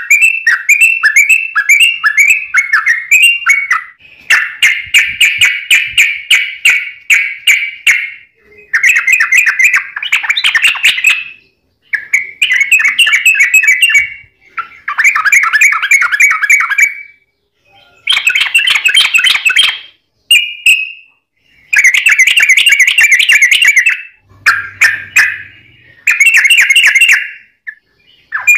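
Yellow-vented bulbul (trucuk) singing fast, tightly packed chattering phrases. About ten loud bursts of rapid warbling notes, each one to four seconds long, come with only brief pauses between them.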